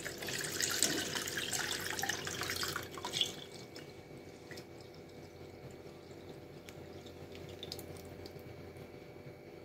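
Lemon water poured from a steel vessel through a mesh tea strainer into a steel bowl: a splashing stream for about three seconds, then a much quieter trickle and drips with a few light ticks.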